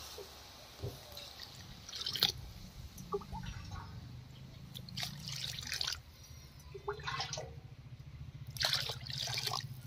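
Water poured bowlful by bowlful from a small steel bowl into a wide aluminium kadai of fried rice, about four pours a couple of seconds apart. This is the cooking water for basanti polao, six bowls of water to three of rice.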